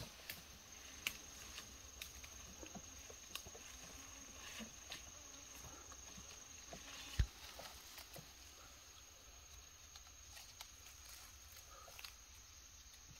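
Quiet rustling and light crackling of leafy undergrowth as a person walks through it and picks wild greens by hand, with one dull thump about seven seconds in. A steady high insect drone runs underneath.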